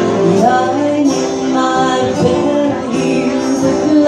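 Live band playing a song: a woman singing lead over acoustic and electric guitars and keyboard.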